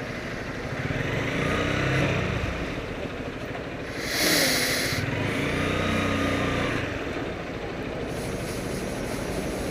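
Motorcycle engine running while riding, its pitch rising and falling with the throttle, over wind rush. A louder hissing swell comes about four seconds in.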